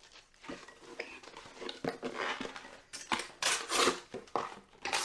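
Irregular clinks and rattles of small hard objects being handled, with a few longer scraping noises; the loudest come about three and a half seconds in and again near the end.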